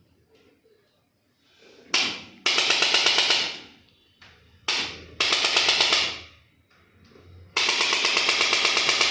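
Three bursts of a fast mechanical rattle at about ten beats a second. They come in about two and a half seconds in, again around five seconds, and longest near the end, each starting abruptly and then fading.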